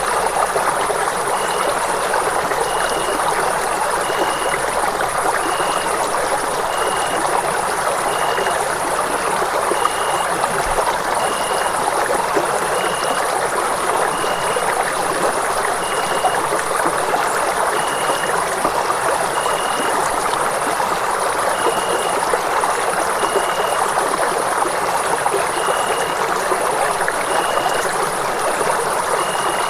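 Running water rushing steadily, like a stream or small waterfall: an even, unbroken hiss.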